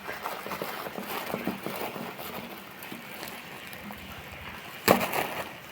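Packaging being handled and rustled while a parcel is opened: scattered light crackles and clicks, with one sharp snap about five seconds in.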